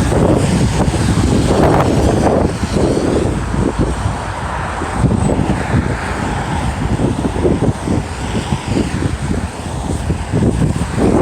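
Snowstorm wind buffeting the microphone: a loud, irregular, gusting rumble.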